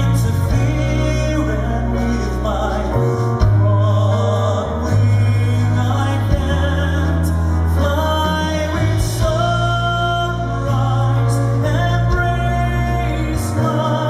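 A male voice singing a slow ballad live over orchestral accompaniment, with held low bass notes that change every few seconds.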